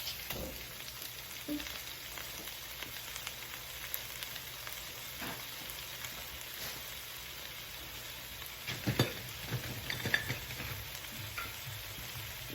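Ground turkey sizzling in a pan with sautéed garlic, ginger and onions, stirred with a utensil that knocks and scrapes against the pan a few times, most loudly about three-quarters of the way through.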